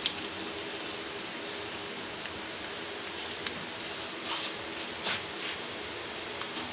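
Sliced onions sizzling in hot oil in a frying pan, just added and starting to fry: a steady hiss with a few soft crackles.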